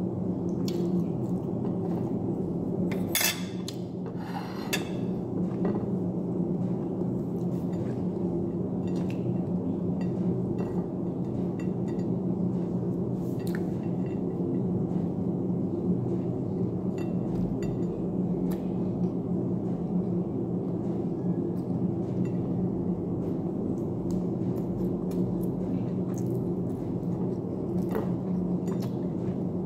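Eating by hand from a plate of rice and fried chicken: scattered small clicks and rubs of fingers, food and plate, over a steady low hum. Two louder clatters come a few seconds in.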